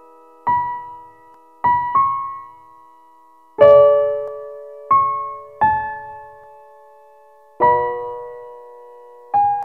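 Slow, sparse piano music: single notes and soft chords struck one to two seconds apart, each left to ring and fade out.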